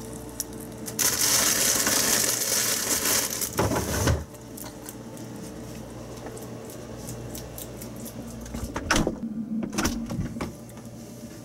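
Pet rabbit eating greens from a refrigerator: quick crunchy chewing clicks, with a loud hissing rustle from about a second in until about four seconds.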